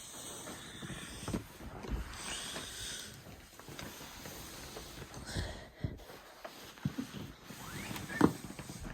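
Cardboard box of a computer being handled and turned over: cardboard scraping and rustling, with several soft knocks and thuds as it is set down.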